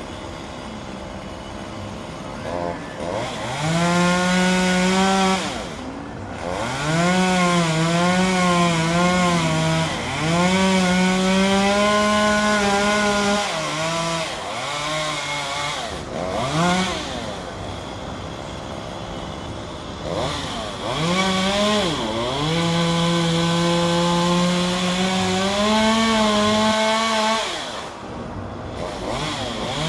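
Gas chainsaw cutting ficus branches, revving up to full speed several times. Within each run the pitch sags and wavers as it cuts, and between runs it drops back toward idle.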